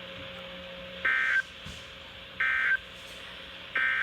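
Emergency Alert System end-of-message signal: three identical short bursts of SAME data tone, each about a third of a second long and about a second apart. It marks the end of a relayed severe thunderstorm warning.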